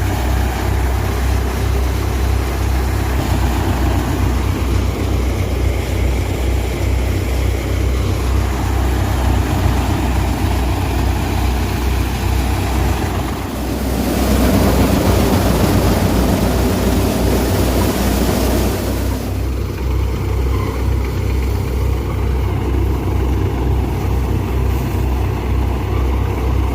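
Engine-driven wheat threshing machinery running steadily with a low, even throb. About 14 seconds in, a louder rushing noise rises over it for about five seconds, then falls back.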